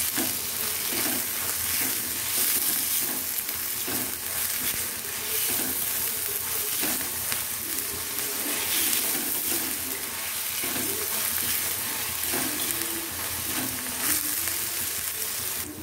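Shredded cabbage, capsicum and onion sizzling in hot oil in a kadhai over a high gas flame, stirred and tossed with a wooden spatula that scrapes against the pan.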